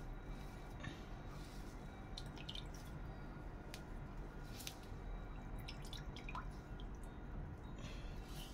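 Ginger juice dripping and trickling from a squeezed cloth into a stainless steel bowl of coconut milk: faint, scattered drips with a little squishing of the wet cloth.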